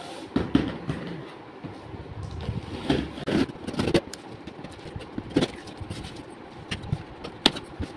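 Scissors slitting the packing tape on a long cardboard box, with irregular scrapes, crinkles and sharp clicks of the tape and cardboard being handled.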